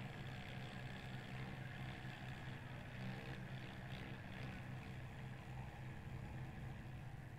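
Faint, steady low drone of a tractor's diesel engine running.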